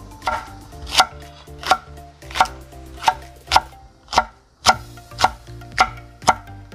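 Chef's knife slicing Cheongyang green chili peppers on a wooden cutting board, each cut ending in a sharp knock of the blade on the board, about two a second.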